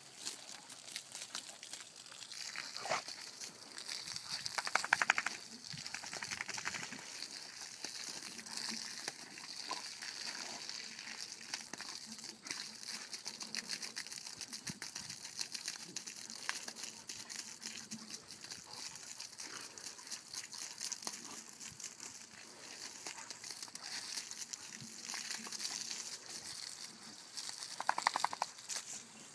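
Water spraying from a garden hose, a steady crackling hiss as the stream breaks up and spatters, with dogs snapping at it. Two brief high squeals stand out about five seconds in and again near the end.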